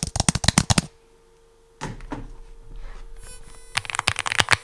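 Fast typing on an AULA F75 gasket-mount mechanical keyboard with Leobog Reaper linear switches: a quick run of soft, even key clacks that stops about a second in. After a pause with a single soft knock, the typing starts again near the end.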